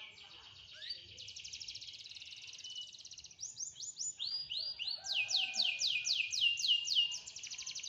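Domestic canary in full song: a fast, fine trill, then louder strings of short downward-sweeping whistled notes, about four or five a second, in the second half.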